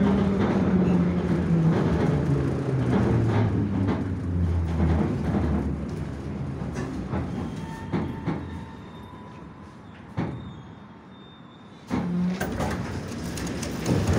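Moskva-2020 metro train braking into a station: the traction motors' whine steps down in pitch and fades as the train slows to a stop. A few sharp clunks follow, then a sudden louder noise about twelve seconds in as the doors open.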